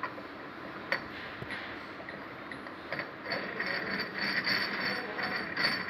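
Steel die-adjusting ring of an extrusion crosshead being turned by hand onto the die, metal scraping and clicking on metal. A sharp click about a second in, then a steady rasp of metal rubbing metal over the second half.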